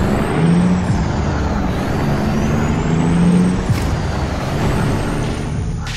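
Heavy truck engine sound effect, running steadily, with a faint high whine that rises and falls in pitch.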